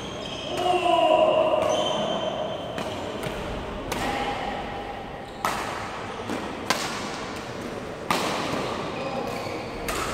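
Badminton rally: rackets hitting the shuttlecock about once every second or so, sharp clicks echoing in a sports hall, with sneakers squeaking on the court floor, loudest about a second in.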